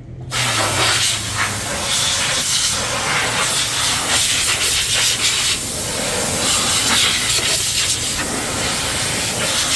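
Loud, steady hiss that starts abruptly and cuts off abruptly after about nine and a half seconds.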